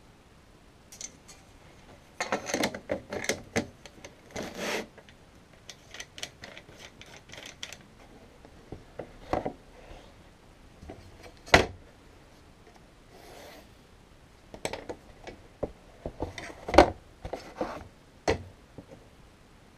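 Paper and card being handled and slid across a metal-railed board cutter on a workbench: rubbing and scraping spells early on, scattered clicks, and sharp metal knocks from the rule and cutter rail, the loudest about midway and late on.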